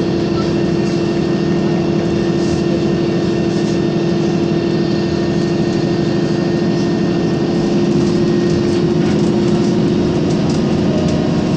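Interior of an Isuzu Citibus city bus driving at a steady speed: an even engine drone with a held tone, road rumble and a few faint rattles.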